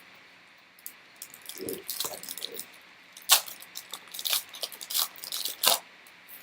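Trading card packs being handled: a run of irregular sharp crackles and clicks, with foil wrappers crinkling and cards snapping against each other.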